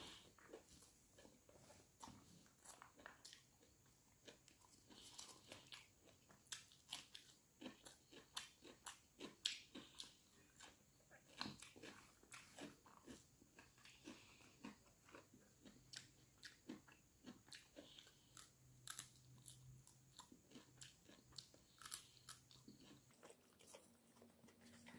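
A person chewing mouthfuls of rice eaten by hand, with many short, irregular mouth clicks.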